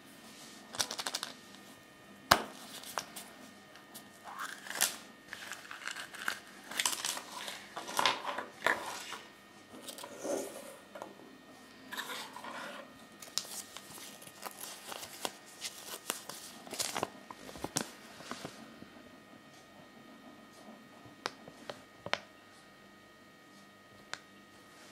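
Paper toy leaflet rustling and crinkling as it is handled and unfolded, mixed with sharp clicks of small plastic figurines and capsules being set on a wooden table. The loudest click comes about two seconds in, and the handling thins out to a few clicks near the end.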